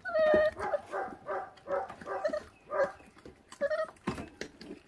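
A puppy giving a run of about seven short, high-pitched whining calls, the first the loudest, as it chews on raw meat and bone. A few sharp clicks of chewing follow near the end.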